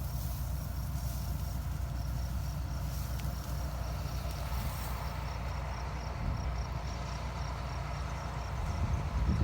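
An engine running steadily with a low rumble, while insects chirp in a regular high pulse of about two to three chirps a second.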